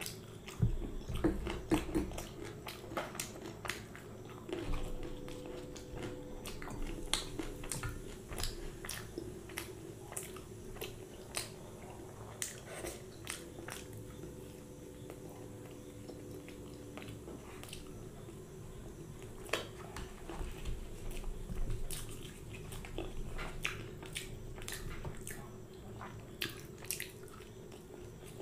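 A person chewing and biting mouthfuls of puri and curry, a steady run of small mouth clicks and smacks.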